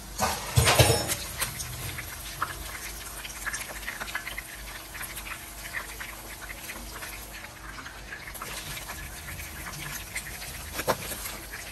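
Goat meat chunks sizzling and crackling in shallow hot oil in a pan, with occasional clicks and knocks of a metal slotted spoon against the pan as pieces are scooped out; a louder thump comes about a second in.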